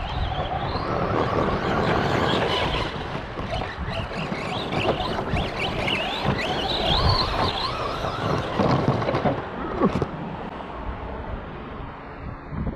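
Arrma Big Rock RC monster truck driven hard on laps: the electric motor's whine rises and falls with throttle over the noise of the tyres and drivetrain. The truck gets quieter after about ten seconds.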